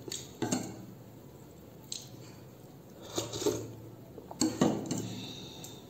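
Close-miked eating sounds: a spoon clicking against a dish and wet squishing and chewing of food, in four short spells about a second apart.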